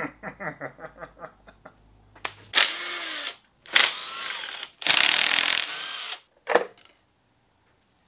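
Cordless power drill running in three runs of about a second each, its motor pitch bending up and down as it spins out bolts on the top of an engine. The runs are preceded by a man's short laugh.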